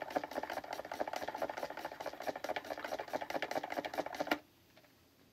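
Freshly poured Coca-Cola fizzing in the plastic reservoir of a toy drink fountain: a dense crackle of bursting bubbles that cuts off suddenly about four seconds in.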